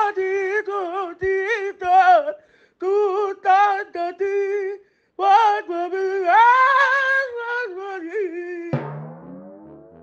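A high voice singing a melody in held, wavering notes with short breaks, as a song laid over the scene. About nine seconds in it gives way to a falling tone that fades out.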